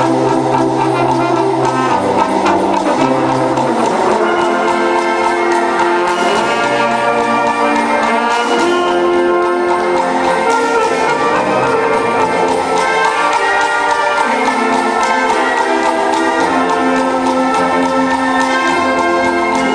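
Wind band playing live, with the brass leading in held chords and a moving melody.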